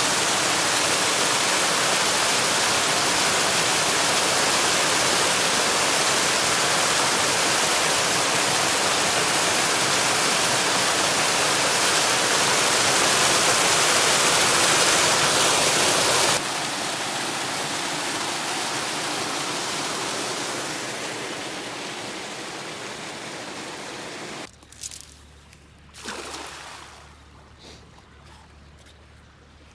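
Loud, steady rush of flowing water. It drops in level about two-thirds of the way through, fades, then cuts off abruptly, leaving a couple of short splash- or knock-like sounds near the end.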